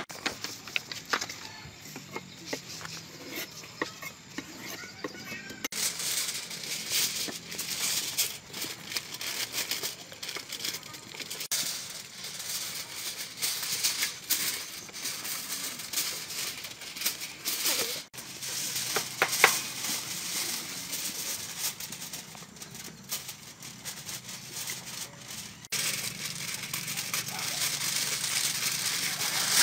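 A plastic-gloved hand rubbing chopped chili paste over a raw fish, making wet squishing and plastic rustling with small clicks, and aluminium foil crinkling near the end.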